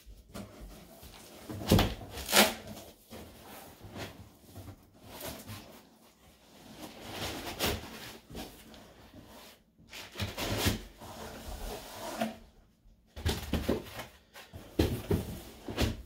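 Cardboard shipping box and foam packing pieces being handled and pulled out: irregular rustling and scraping, broken by several sharp knocks and thumps, the loudest about two seconds in.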